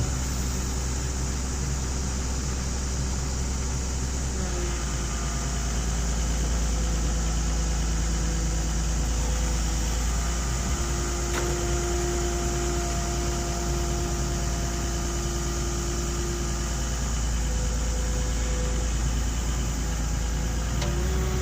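Excavator's diesel engine running steadily under load, with whining tones above it that step up and down in pitch a few times as the machine works.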